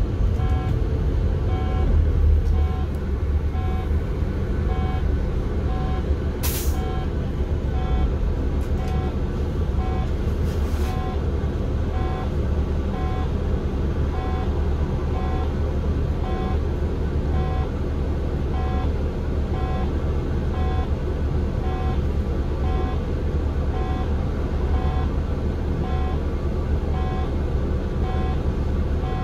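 City bus heard from inside, its engine running with a steady low rumble while an electronic beep repeats evenly a little faster than once a second. A short sharp hiss of compressed air comes about six seconds in, and a fainter one a few seconds later.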